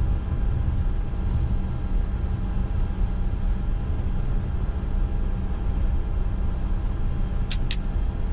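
Steady low rumble of a Bombardier Challenger 605's running engines and systems heard inside the cockpit, with a few constant tones over it. Two short sharp clicks come close together near the end.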